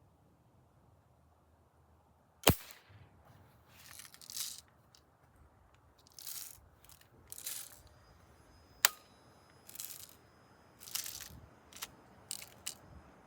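BB gun fired twice, two sharp cracks about six seconds apart. Several short hissing, rustling sounds come between and after the shots.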